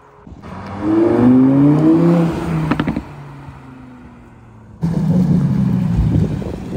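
An Audi R8's engine revs hard with rising pitch as the car pulls away, gives a couple of sharp cracks, then fades as it drives off. About two seconds before the end, a Lamborghini Huracán's V10 comes in suddenly, loud and steady at low revs.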